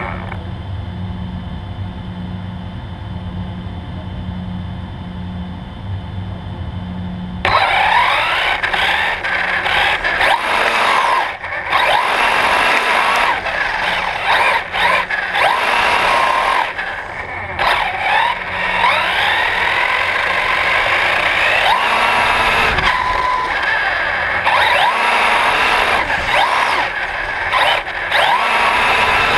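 Brushless electric motor and drivetrain of a 1/8-scale Himoto RC car, heard from a camera mounted on the car. A low steady hum for about the first seven seconds, then the motor whine starts suddenly and keeps rising and falling in pitch as the car speeds up and slows down, with tyre noise on concrete.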